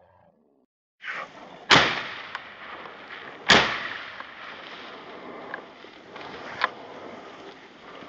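Two shotgun shots fired at a flushed partridge, a little under two seconds apart, each with a short fading tail.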